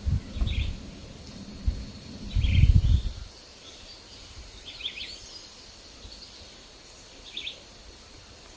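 Wind buffeting the microphone in low gusts during the first three seconds, the loudest sound here. Under it, a bird gives short chirps every couple of seconds over a steady high insect drone.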